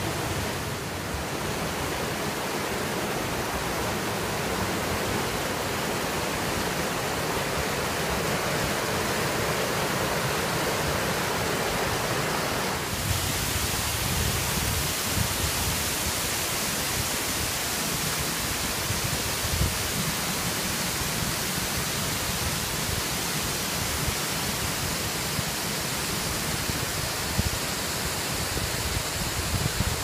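Waterfall: water spilling over rock ledges into pools, a steady, even rush. About thirteen seconds in the sound changes abruptly, becoming hissier and less full in the middle.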